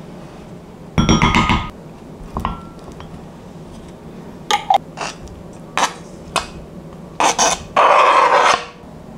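A wooden spoon knocking and scraping against a glass jar and glass bowl while thick Greek yogurt is scooped out, with short clinks, the first one ringing. Near the end, a longer scraping rush as diced gold kiwi is slid off a wooden cutting board into the bowl.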